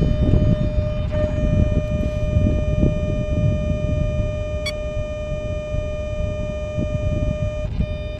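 Electric RC helicopter (SAB Goblin 700) at flying speed: a steady, high-pitched whine from the motor, gearing and rotors, heard with heavy wind buffeting on the tail-mounted camera's microphone. A brief click comes about halfway.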